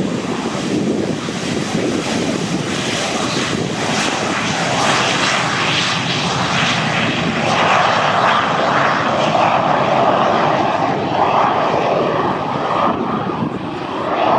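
Fixed-wing aircraft engine noise as a plane flies by, a steady loud rush that grows stronger and higher about halfway through.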